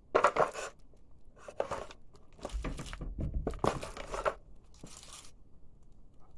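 Plastic toy truck being pressed under a sneaker, its plastic body crunching and crackling in five bursts, the first the loudest.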